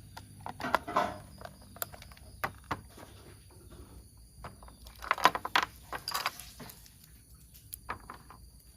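Hands handling plastic toy train parts and packaging: scattered small clicks and rustles, busiest about a second in and again around five to six seconds in.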